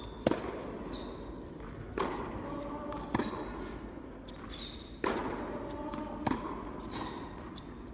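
Tennis rally in an indoor hall: sharp racket strikes and ball bounces, an impact every second or so, the nearer hits louder.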